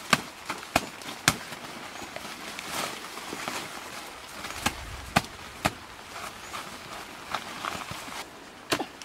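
A knife hacking at a banana plant's stem: irregular sharp strikes, a cluster at the start, a few around the middle and a last one near the end, with rustling of leaves and dry litter in between.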